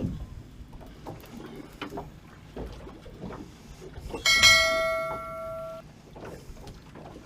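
A struck piece of metal ringing like a bell once, about four seconds in, with a clear ringing tone that fades over about a second and a half before stopping. Light knocks and clicks are heard on either side.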